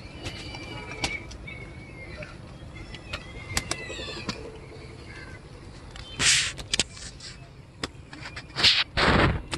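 Small birds chirping in short calls, with scattered clicks, then three short loud rustles near the end as a freshly caught tilapia is handled and unhooked.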